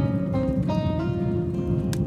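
Background music of slow, sustained melodic notes, with a wood fire crackling underneath and a sharp pop near the end.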